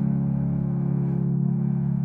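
Music: a low chord held steady on sustained instruments, with no singing.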